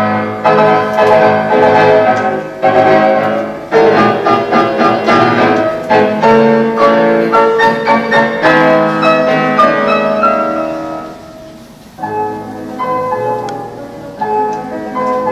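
Classical music led by piano, loud and full of chords, thinning out about ten seconds in and picking up again near the end.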